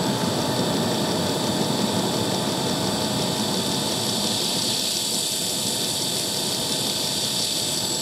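Self-powered portable diesel air heater running steadily at temperature: the even rush of its burner and fans, with a steady high whine.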